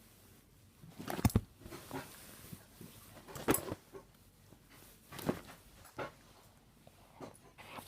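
A burp about a second in, followed by a few short, quieter sounds.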